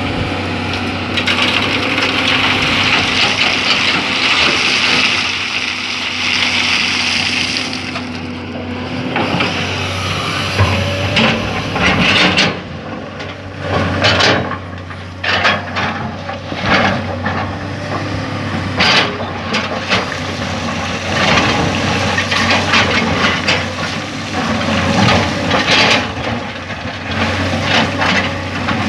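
Excavator diesel engine running with a steady low hum, under a hiss for the first several seconds. From about halfway on come many sharp knocks and clatter of the machine working sand and gravel.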